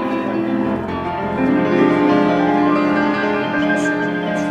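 Piano playing slow, sustained chords, moving to a new chord about a second in, with another chord struck right at the end.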